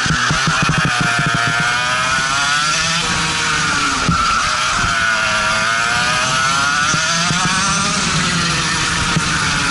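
Racing go-kart engine running hard on track, its pitch falling and climbing back up twice as the revs drop and rise again. A single brief knock about four seconds in.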